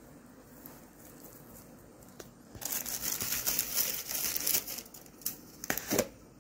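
Coarse sea salt tipped from a hand onto shredded herbs in a granite mortar: about two seconds of gritty, crackly rustling, then a few short knocks near the end.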